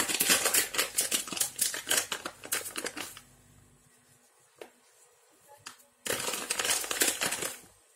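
Seasoning sachet crinkling as it is shaken over a dish of potato wedges: a three-second burst of rustling, a quiet pause with a single click, then a second shorter burst.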